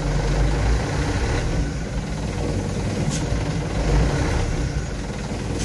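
Mitsubishi Colt Diesel truck's diesel engine idling steadily, heard from inside the cab.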